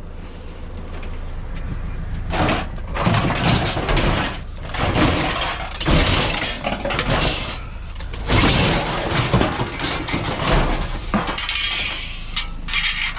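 Scrap being handled and loaded into a van: a run of irregular clattering, clinking and crashing.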